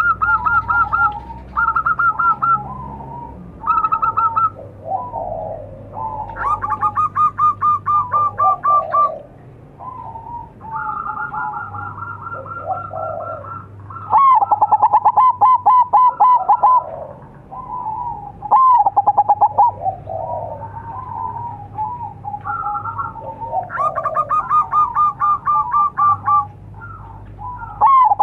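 Zebra doves (perkutut) cooing: phrases of rapid, staccato trilled notes repeated every few seconds, with more than one dove calling at different pitches at once.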